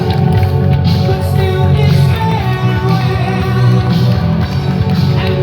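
Loud rock-style music with a singing voice over a steady bass beat.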